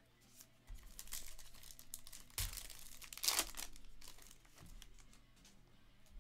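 Foil trading-card pack wrapper being torn open and crinkled by hand, in several crackling bursts; the loudest comes about three seconds in. A few soft thumps on the table come in between.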